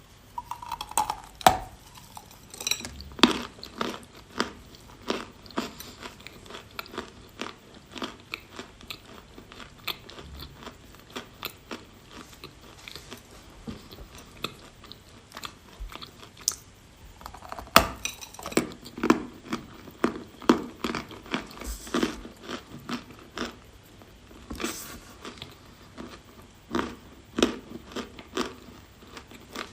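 A person biting and chewing a piece of edible chalk close to the microphone: irregular sharp crunches, densest in the first few seconds, again in the second half and near the end.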